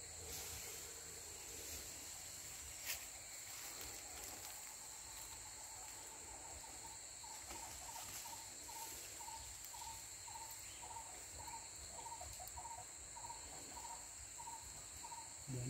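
Steady, high-pitched drone of an insect chorus from the riverside vegetation. About seven seconds in, a faint short call starts repeating about twice a second.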